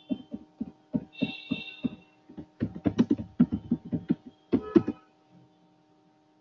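Computer keyboard being typed on: irregular runs of key clacks with short pauses between them, over a steady low hum.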